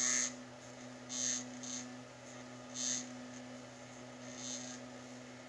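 Sparkmaker resin printer's Z-axis motor running with a steady, pretty loud vibrating hum. The owner wonders whether it is binding or just the printer itself, and suspects the molded plastic body. A few short hisses break in.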